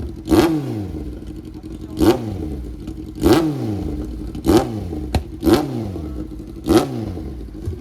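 Kawasaki Z-series inline-four motorcycle, its catalytic converter removed for a full exhaust system, revved in six short sharp throttle blips, each dropping back to idle, about one every second. One sharp crack from the exhaust about five seconds in.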